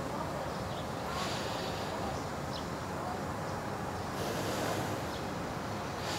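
Steady outdoor background noise with two brief soft hissing swells, one about a second in and one about four seconds in, and a few faint short chirps.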